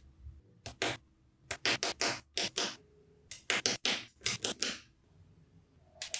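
Rapid short clicks and scrapes of hands-on craft work with small parts. They come in three quick clusters, with a pause of about a second near the end.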